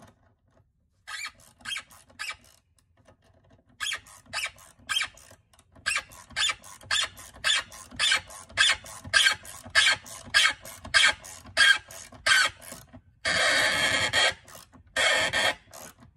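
Hand tool being worked against a 1/4-inch gator crimp fitting on a carpet-cleaning solution hose, seating the fitting. It makes a string of short, sharp strokes, at first scattered and then about two a second, with two longer scraping sounds near the end.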